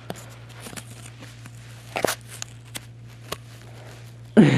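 Sharpened jackknife blade cutting through cardboard: scattered crunches and small clicks, with one sharper crunch about two seconds in, over a steady low hum.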